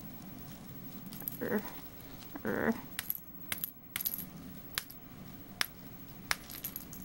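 Small bell inside a bird's ball toy jingling in short separate tinkles, one or two a second, as a green-cheeked conure handles it. Two brief voice-like sounds come in the first few seconds.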